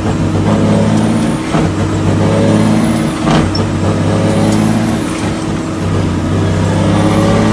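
International truck's diesel engine heard from inside the cab while the driver shifts an 18-speed manual gearbox. The engine pitch climbs, then breaks off and drops at each upshift, several times over.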